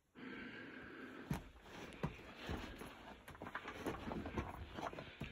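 Footsteps crunching and scuffing over a rocky, rubble-strewn mine floor: uneven steps with a few sharper knocks.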